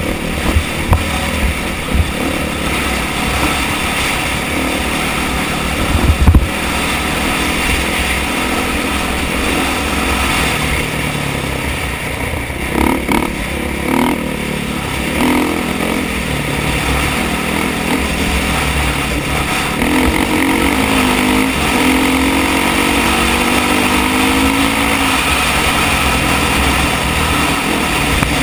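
2013 KTM 500 EXC four-stroke single-cylinder dirt bike engine running under load on a dirt trail, with wind buffeting the microphone. Revs rise and fall a little past two-thirds of the way through. There is a loud thump about six seconds in.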